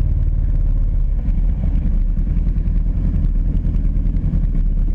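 Kawasaki Brute Force 750 ATV's V-twin engine running close up, a loud, steady low drone that turns choppier and more pulsing about a second in.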